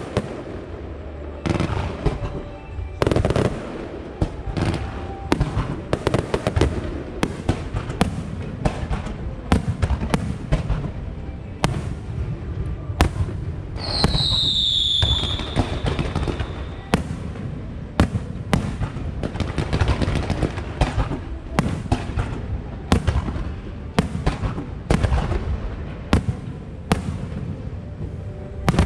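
Aerial fireworks display: a continuous, rapid run of shell bursts and bangs. About halfway through, a shrill firework whistle sounds once, falling in pitch.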